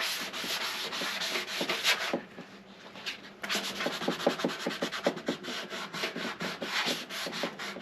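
Sandpaper rubbing back and forth over cured Bondo body filler on a steel motorcycle gas tank, hand-sanding the filler flat over a dent. The strokes pause for about a second a little after two seconds in, then resume at a quick steady pace.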